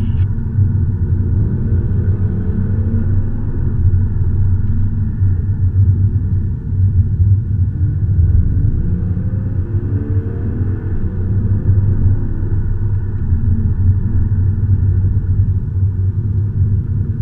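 Car engine and road rumble heard from inside the cabin on the move, with the engine note rising a couple of times under acceleration.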